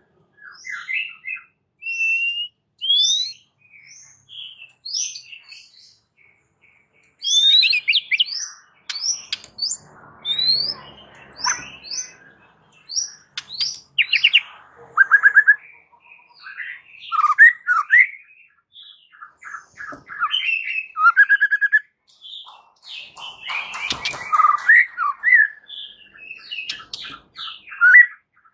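White-rumped shama (murai batu) in full song. It opens with a string of rising whistled notes, about one a second, then after a short pause breaks into a denser run of fast trills, chatter and whistles.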